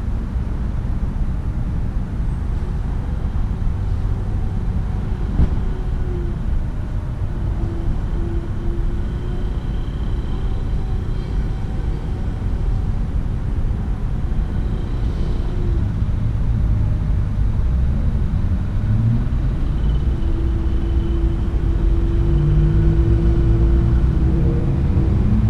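Outdoor rumble: a steady low noise with faint engine-like hums that rise and fall, growing a little louder in the second half.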